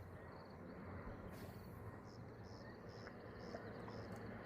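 Faint outdoor ambience with a steady low hum. From about two seconds in, a series of short, high chirps repeats roughly twice a second from a small creature, possibly an insect or a bird.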